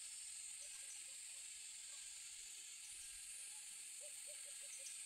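Faint steady high-pitched hiss, with soft short chirps repeating in a quick row about four seconds in.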